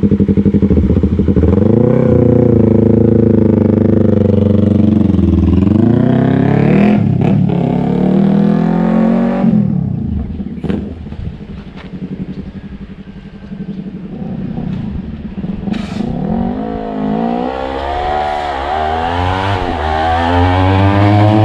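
Yamaha YZF-R3's parallel-twin engine running through an M4 slip-on exhaust, revved up and let fall back several times. The revs sweep up and down repeatedly, drop quieter around the middle, then climb again near the end.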